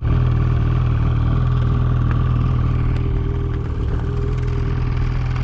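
ATV (four-wheeler) engine running at a steady, unchanging pitch while the machine moves, a loud constant hum that starts abruptly.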